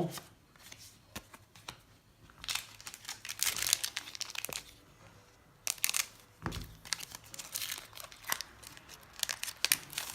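Foil booster pack wrappers crinkling and tearing as they are opened, in two bursts of crackling, with a low thump about six and a half seconds in.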